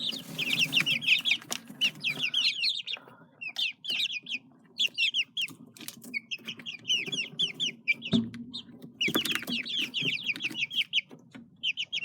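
Small flock of chickens peeping in quick runs of short, high, falling notes, with brief pauses. A few sharp taps and a dull thump about eight seconds in.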